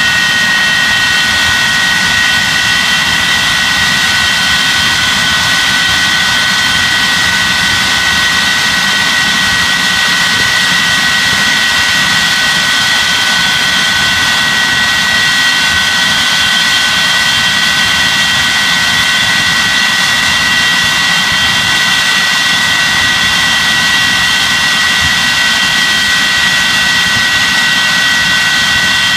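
Jet engines of a Lightning running steadily on the ground, a loud rushing sound with a constant high whine and no change in power.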